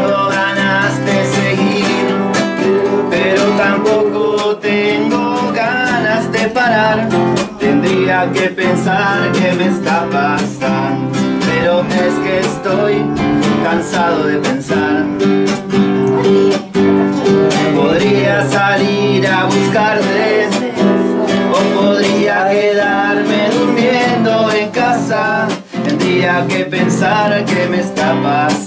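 Acoustic guitars, one a nylon-string classical guitar, strummed and picked together in a folk tune with a steady rhythm.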